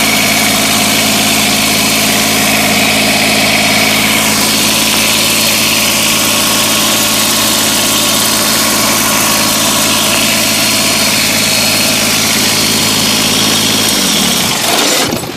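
Kubota BX2380 sub-compact tractor's three-cylinder diesel engine idling steadily, until the engine sound stops near the end.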